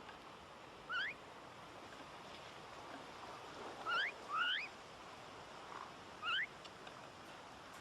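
Myna giving short rising whistled calls, four in all: one about a second in, two close together near the middle, and one more later, over a faint steady background hiss.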